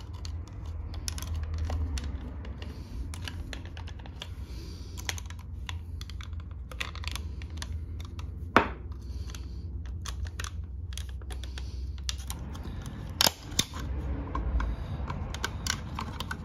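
Small plastic clicks and scraping as a flathead screwdriver pries apart the clipped-together plastic housing of a 2014 Ford Explorer power seat switch, with one sharp snap about halfway through and another double snap later on as clips give way.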